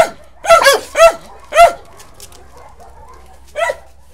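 Dog barking in short, high-pitched yelps: five quick barks in the first couple of seconds, then one more near the end.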